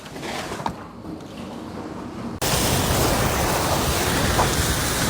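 Strong wind blowing and rumbling against the microphone. About two and a half seconds in it jumps abruptly to a louder, steady storm-wind roar.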